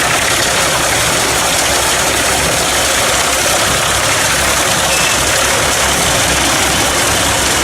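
Pezzolato PTH 700 G drum wood chipper driven off a Fendt tractor's PTO, running with a loud, steady mechanical noise that does not let up.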